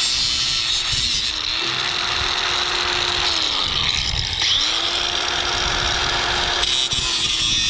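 Handheld power tool running as it works through the aluminum of a jon boat. Its motor drops in pitch under load a little past the middle, then speeds back up.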